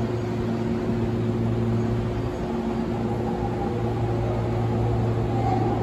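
Railway station platform ambience: a steady low electrical hum with a few held tones over a wash of background noise, the lowest tone fading briefly about halfway.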